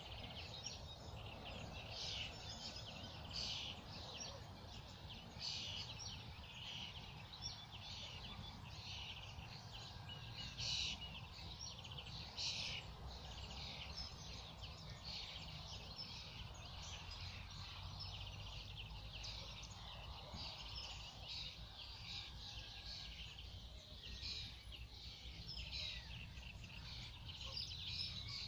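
Songbirds singing, many short high calls overlapping in a busy, continuous chorus, over a steady low rumble.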